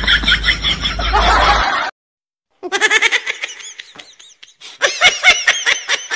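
Laughter in rapid ha-ha pulses. It breaks off for a moment about two seconds in and starts again, then continues in bursts.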